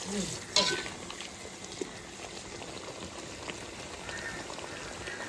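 Meat and liver curry bubbling and sizzling steadily in a pot, with a sharp clink about half a second in.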